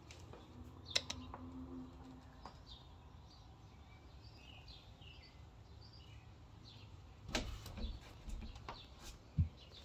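Faint songbirds chirping outside through an open door, many short chirps in a row. Over the last few seconds come a few knocks and thumps, the loudest near the end.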